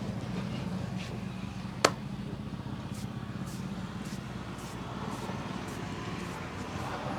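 Steady low hum of road traffic, with one sharp crack about two seconds in and light swishes of hands rubbing over hair about twice a second in the second half of a head massage.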